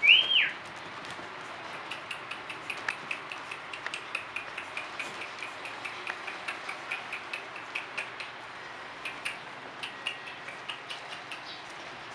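Shih Tzu puppies begging: one gives a sharp, high yelp right at the start, then comes a long run of short high squeaks and yips, about three or four a second, with clicking mixed in.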